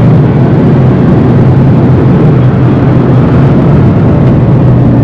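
Rimac Nevera electric hypercar at speed, heard from inside the cabin: a loud, steady roar of tyres and wind.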